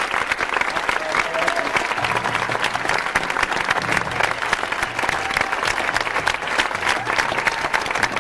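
Large crowd applauding steadily, a dense patter of many hands clapping, greeting the band just announced.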